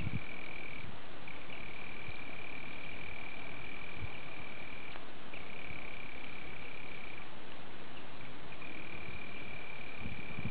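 A high, steady insect trill on one pitch, held for several seconds at a time with a few short breaks, over a steady background hiss.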